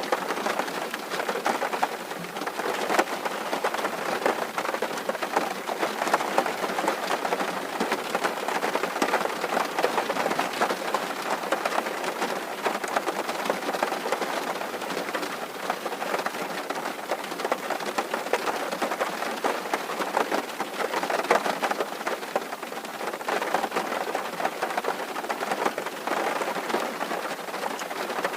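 Steady rain drumming on a tin roof, a dense continuous patter of drops on the metal sheeting.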